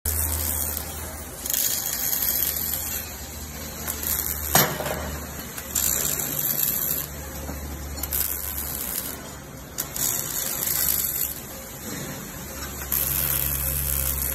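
Robotic MIG welding arc crackling and hissing in a run of short welds in quick succession, each about a second long with brief gaps between, over a low hum. A sharp click about four and a half seconds in.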